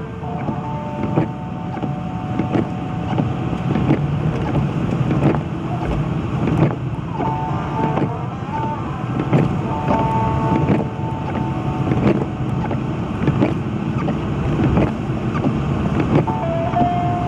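Car cabin noise while driving on a snow-covered road: a steady low rumble of engine and tyres, with frequent small irregular clicks and knocks. Faint steady tones come and go a couple of times.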